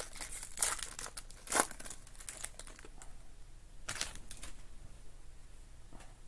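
Shiny foil trading-card pack wrapper being torn open and crinkled by hand, loudest in the first two seconds, with another short crinkle about four seconds in as the cards are drawn out.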